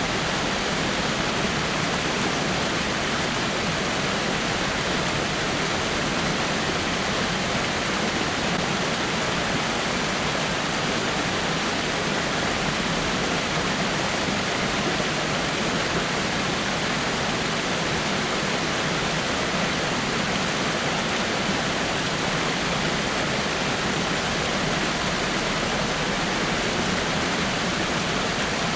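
Small waterfall spilling over rocks: a steady, even rush of falling water.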